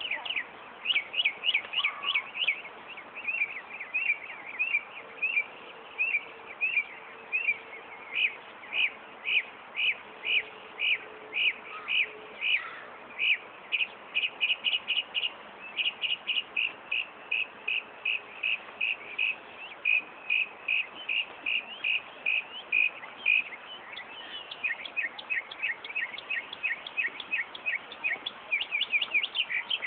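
Northern mockingbird singing long runs of sharp, rapidly repeated chirps, one phrase type after another, mimicking a car alarm's cycling tones.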